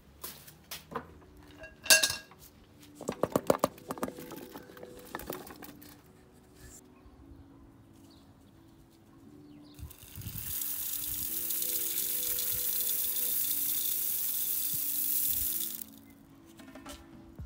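Water poured into the Afghan kazan in a steady splashing stream for about six seconds, starting about ten seconds in and stopping sharply, as the soup pot is filled. Earlier come a few clinks and a quick rattle of ingredients tipped into the metal pot, under background music.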